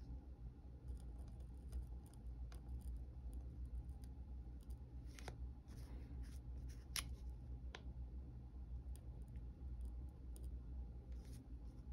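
Metal pen nib scratching on paper as fine ink lines are drawn, a scatter of short faint strokes with a few sharper scratches between about five and eight seconds in, over a low steady hum.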